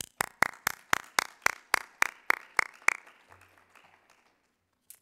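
Applause from a small group: one person clapping close to the microphone, loud and even at about four claps a second for about three seconds, over fainter scattered clapping that fades out about four seconds in.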